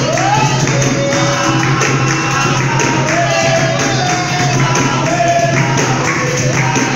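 Capoeira roda music: an atabaque drum, a berimbau and a pandeiro tambourine playing, with hand-clapping and group singing.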